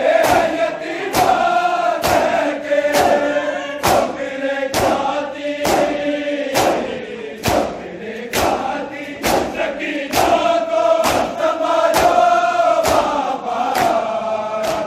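A large group of men chanting a mourning lament in unison while doing matam, beating their bare chests with open hands together: a sharp, massed slap falls in a steady rhythm a little more than once a second under the held notes of the chant.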